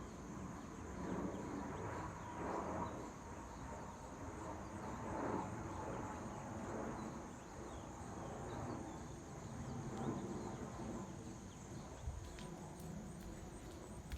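Jet airliner passing overhead on approach at about 4,700 feet, a steady rumble that swells and eases. A constant high insect drone runs beneath it.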